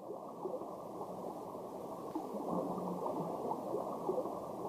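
Soft, muffled gurgling and bubbling of pond water, with small bubble blips scattered through it.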